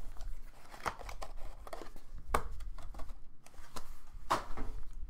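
Hands opening a trading-card box and handling its packaging: light rustling with a few scattered sharp clicks.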